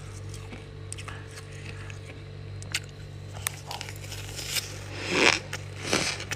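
Close-up crackles and scrapes of squeaky, powdery frost, then two louder crunches near the end as it is bitten and chewed. A steady low hum runs underneath.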